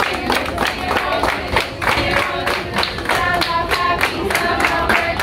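A group of restaurant servers singing a birthday song together over steady rhythmic hand clapping.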